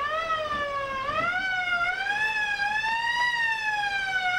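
A siren-like wail: a single high tone gliding slowly up and down, unevenly, rising and falling about once every second or two.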